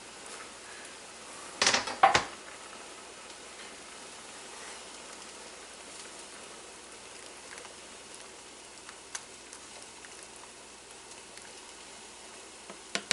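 A metal knife clatters sharply against a cooking pot and cutting board a few times about two seconds in. After that there is a quiet, steady sizzle of cabbage sautéing in a pan, with a few soft ticks from stirring the soup pot.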